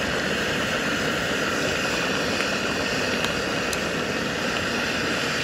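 Steady rushing noise that holds an even level throughout, with a couple of faint light clicks about three and a half seconds in.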